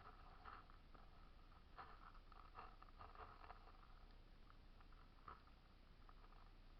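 Near silence: faint outdoor background with a few soft, scattered rustles or scuffs.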